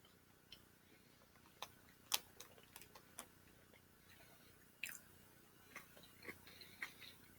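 Faint chewing of tuna pasta salad during a timed eating challenge, with scattered sharp clicks. The loudest click comes about two seconds in.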